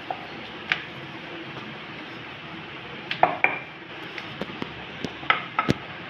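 A wooden rolling pin rolling out a ball of chapati dough on a floured granite counter, with a few sharp knocks and clacks of the pin against the stone, mostly in the second half, over a steady hiss.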